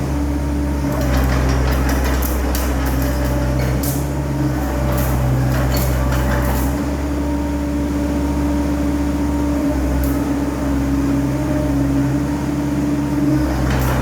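CAT 307D mini excavator's diesel engine running steadily, with a whine that shifts a little in pitch and scattered metallic clicks and knocks over it.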